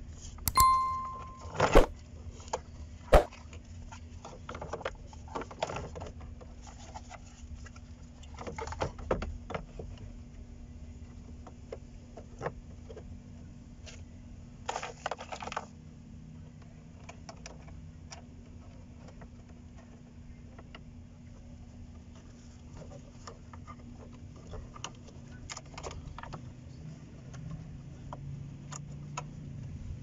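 Brittle plastic dashboard trim of a Chevy C2's fan and defroster control console being worked loose and handled: scattered clicks, knocks and rattles of plastic parts. A short ding sounds about a second in, over a faint steady hum.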